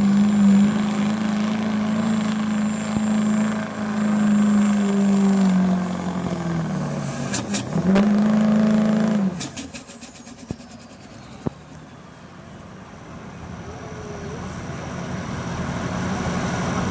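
GMC Sierra's Duramax diesel V8 at full throttle dragging a pulling sled, with a loud steady engine note that sags and climbs once more. About nine seconds in the engine note drops off abruptly, leaving a high whine that falls away and a lower, quieter engine sound that slowly builds.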